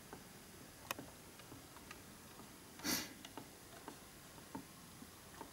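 Quiet room with a few faint small clicks from handling an N gauge model steam locomotive as it is turned around, and one short breathy rush of noise about three seconds in.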